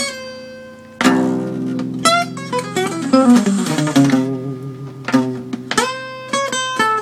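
Acoustic guitar playing an E blues lick turned with a G-sharp diminished chord: a note rings and dies away, then a strummed chord is followed by a run of single picked notes stepping down in pitch. Another strum comes about five seconds in, followed by more falling notes.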